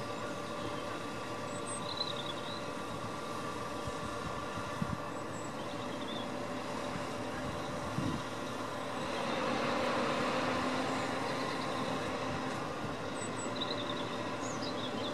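Heavy diesel engine of a crane running steadily under load while lifting a motor boat off a lorry trailer, swelling louder for a couple of seconds partway through, with a few light knocks.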